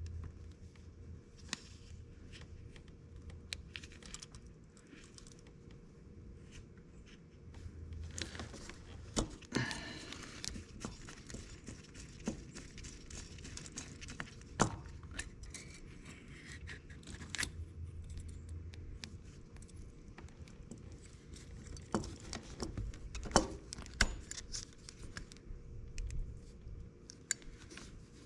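Scattered clicks, clinks and scrapes of hand tools and metal parts being handled while the carburetor is unbolted from an ATV, with a stretch of rustling about eight to eleven seconds in.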